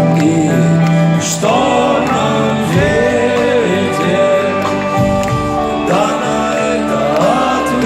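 Live rock band playing a slow song over steady held chords. A wavering melody line with vibrato comes in about a second and a half in.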